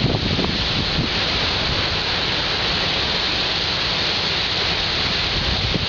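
Steady rush of sea surf at the shore, with wind buffeting the microphone.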